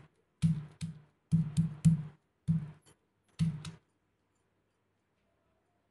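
Stone pestle pounding boiled chalta pieces on a stone grinding slab (shil-nora): about ten dull knocks with a short low ring, some in quick pairs, stopping about four seconds in.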